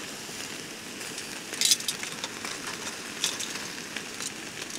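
Sauce-glazed gar pieces sizzling on a wire grill grate over high flames, the sugary sauce caramelizing at full heat. A few sharp clicks sound as metal tongs turn the pieces on the grate, the loudest about a second and a half in.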